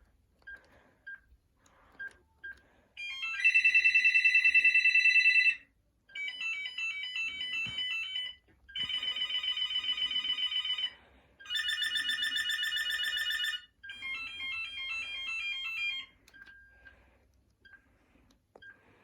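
BT Graphite 1500 cordless phone base unit playing five different electronic ringtones in turn, each a short warbling melody of about two seconds with a brief gap between. Short beeps sound before the first tone and after the last.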